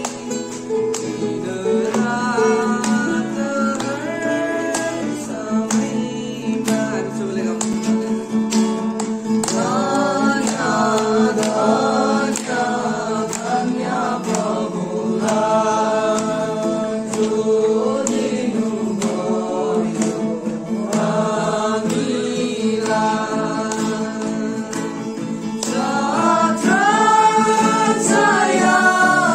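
A song sung to acoustic guitar accompaniment, several voices singing together over regular strumming.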